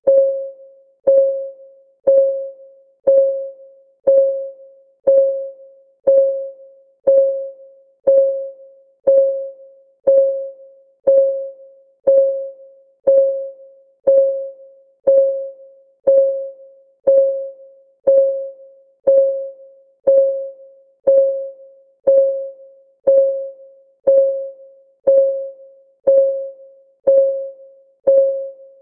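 Countdown timer's clock-ticking sound: one tick each second, steady and even, each a sharp click with a short ringing tone that dies away before the next.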